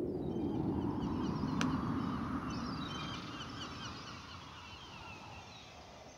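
Many small birds chirping and twittering in quick short calls, over a low rushing noise that slowly fades away.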